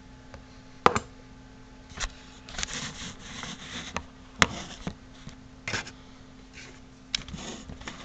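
Handling noise of a camera being moved and repositioned on a bench: several sharp knocks and clicks, with rubbing and scraping between them.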